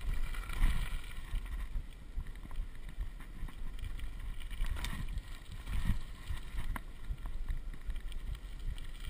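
Kickbike rolling over a gravel road: tyres crunching and rumbling on the loose gravel, with scattered short clicks and knocks from the bike and stones, and wind buffeting the microphone.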